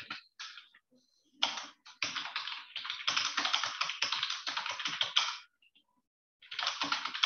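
Fast typing on a computer keyboard: quick runs of keystrokes, with a pause of about a second before the typing picks up again near the end.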